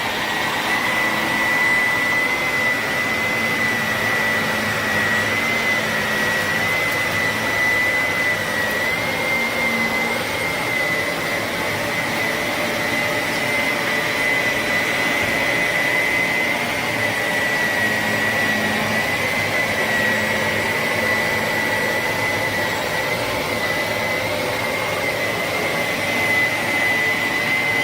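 Vacuum cleaner running steadily: a high, slightly wavering whine over a continuous rush of air.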